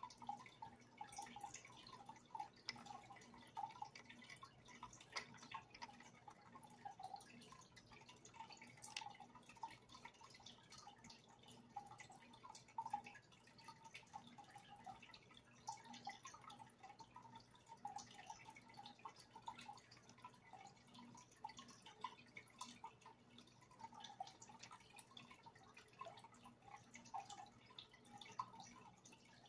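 Faint dripping and bubbling of water in a goldfish aquarium, a continuous run of small irregular plinks over a low steady hum.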